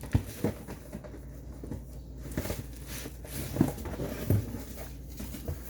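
Scattered light taps and rustles of a makeup brush set and its packaging being handled, over a steady low hum.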